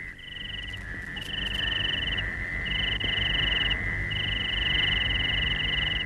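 Night ambience of calling creatures: four high trills, each lasting from about half a second to two seconds with short gaps between them, over a steady high-pitched drone.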